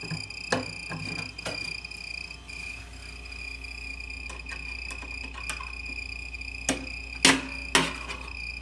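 Old refrigerator giving off a steady high-pitched squeal, the mouse-like chirping noise that spraying WD-40 makes go away. Several sharp knocks sound over it, the loudest two near the end.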